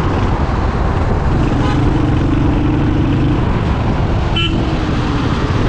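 Royal Enfield Hunter 350's single-cylinder engine running while riding in traffic, under a dense steady low rumble. A vehicle horn sounds in a held note for about two seconds starting just over a second in, and a short higher toot follows about four and a half seconds in.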